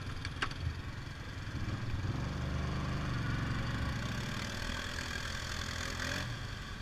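ATV engine running steadily at low speed, a little louder from about two seconds in, with a couple of short clicks near the start.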